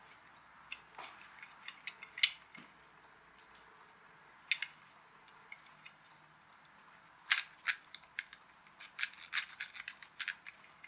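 Light clicks and taps of hard plastic parts as a partly dismantled toy car is handled and turned over in the hands. Single clicks come in the first half, then a quicker run of clicks near the end.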